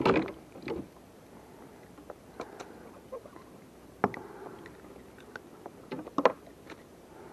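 Handling noises as a crappie is unhooked by hand in a kayak: scattered knocks, clicks and rustles of the fish, jig and gear, loudest at the very start, about four seconds in, and around six seconds in.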